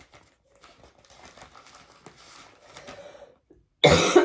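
Soft rustling and crinkling as a cross-stitch project is handled, then a loud, harsh cough breaks out near the end.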